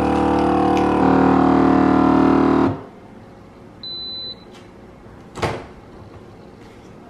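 Cabela's vacuum sealer pump running with a steady, loud hum as it draws the air out of a bag of meat on the dry setting. It changes note about a second in and stops sharply after about three seconds, followed by a short high beep and then a single click.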